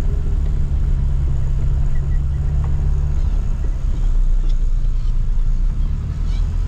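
Car heard from inside its cabin: a steady, loud low rumble of engine and road noise, easing slightly about halfway through.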